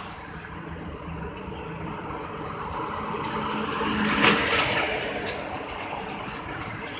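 Heavy truck passing on a highway: engine and tyre noise build to a peak about four seconds in, then fade as it goes by.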